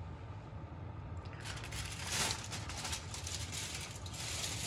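Aluminium foil crinkling as it is peeled back off a baking tray of rice and meat fresh from the oven, starting about a second and a half in, over a low steady hum.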